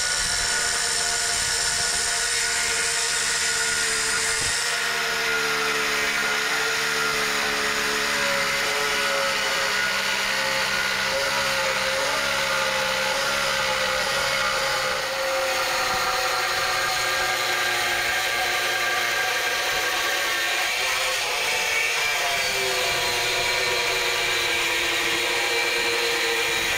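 Angle grinder cutting a stone slab: a steady high motor whine with the hiss of the blade in the stone, its pitch wavering and dipping as the blade is pushed through the cut.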